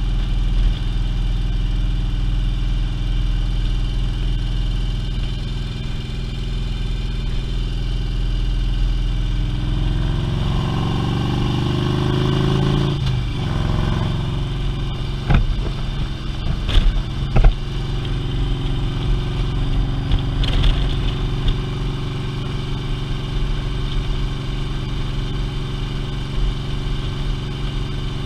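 Touring motorcycle's engine running at road speed, heard from the rider's seat with low wind rumble. An engine tone rises about ten seconds in and breaks off sharply a few seconds later, and a few short sharp knocks follow.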